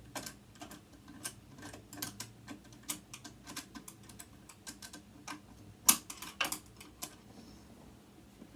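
Screwdriver clicking and tapping against the metal parts of a sewing machine being taken apart: a run of irregular small clicks with a sharper knock about six seconds in, then the clicking stops.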